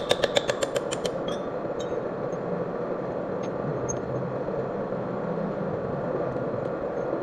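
Milling machine running steadily with a hum, opened by a rapid run of about a dozen sharp ticks in the first second.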